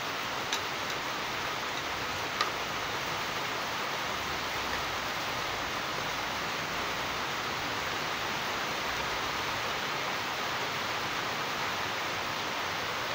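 Steady, even hiss, with two light clicks, one about half a second in and one about two and a half seconds in.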